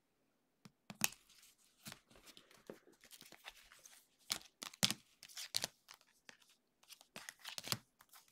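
Clear hard-plastic trading card cases being picked up and stacked, with about eight sharp, irregular clacks as the cases knock together and soft rustling of plastic card sleeves between them.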